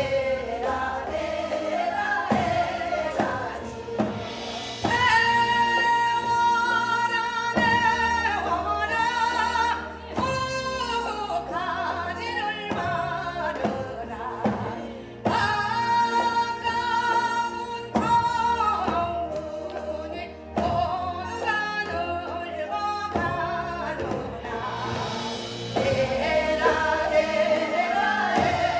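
Women singing a Seodo (northwestern Korean) folk song in long, wavering held notes, over traditional Korean instrumental accompaniment, with new phrases entering about five, fifteen and twenty-six seconds in.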